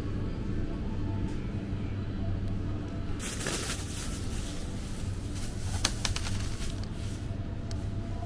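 Thin plastic produce bag crinkling and rustling from about three seconds in, with a few sharp clicks near six seconds, as it is handled and put into a plastic shopping basket. A steady low hum runs underneath.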